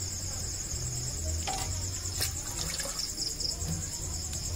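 Crickets chirping in a steady, pulsing trill over a low hum, with a single sharp click about two seconds in.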